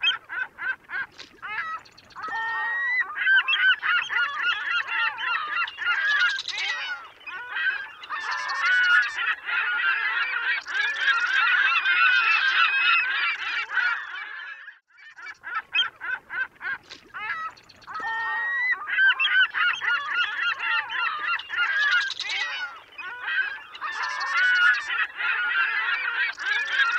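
A flock of geese honking, many calls overlapping in a continuous din. The same stretch of calling seems to start over about halfway through, with a brief pause before it.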